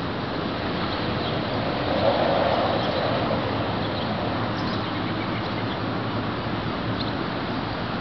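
Steady outdoor background noise, swelling louder for about a second and a half starting about two seconds in.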